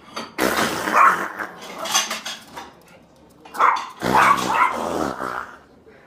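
A dog barking in two bouts, the second starting about three and a half seconds in.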